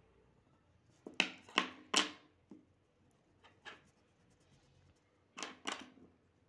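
Sharp knocks and clatter of drawing tools, a metal compass and pencil, being handled and set down on a wooden desk. Three loud knocks come about a second in, then a few lighter taps, and two more knocks near the end.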